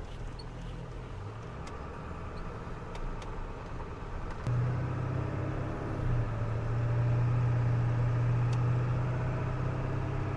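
Ford F-350 Powerstroke diesel pickup driving, with a steady low engine hum and road noise. The engine note gets stronger and louder about four and a half seconds in.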